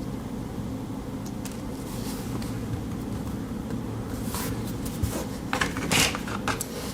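Small scissors of a Victorinox Classic SD snipping fingernails: several short, sharp clicks in the second half, over a steady low hum.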